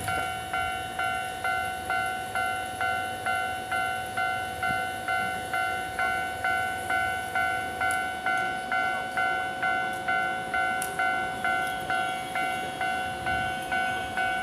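Japanese railway level-crossing alarm ringing its electronic bell, about two strikes a second, each ringing tone fading before the next strike.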